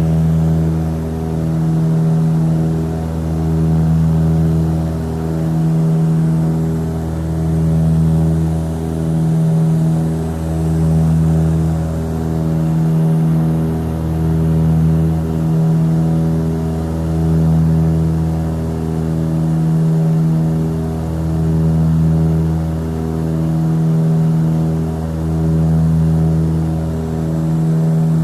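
Aircraft engines droning steadily, heard from aboard the aircraft, with a slow, regular swell and fade about every two seconds.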